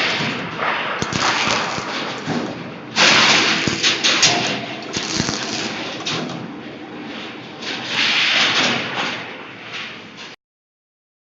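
Rebar cage welding machine at work: a loud hissing noise that surges and fades several times, with sharp knocks and clanks throughout. It stops abruptly near the end.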